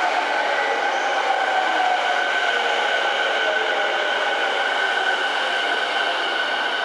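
E217-series electric commuter train moving slowly alongside the platform, its traction motors and inverter giving a steady whine of several layered tones over the rumble of the running gear.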